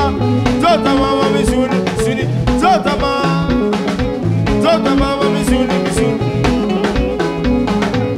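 Live Congolese soukous band playing, with electric guitars, bass and drum kit in a steady dance groove. The sound is taken straight from the mixing desk, so the crowd is barely heard.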